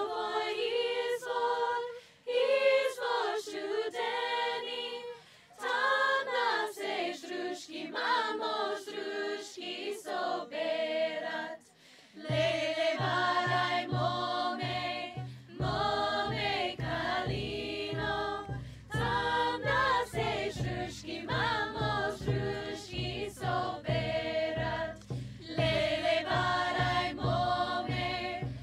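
A group of voices singing a slow, chant-like song together, unaccompanied at first. About twelve seconds in, a low drum beat comes in and keeps a steady pulse under the singing.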